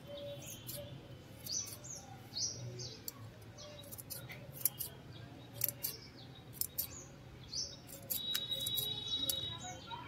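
Small hand scissors snipping a shrub's shoots into shape, a series of sharp clicks. Birds chirp throughout in short falling calls, about one a second.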